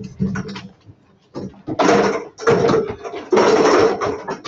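Metal-framed classroom chairs being picked up, moved and stacked: four loud scraping, clattering bursts, each under a second, beginning about two seconds in.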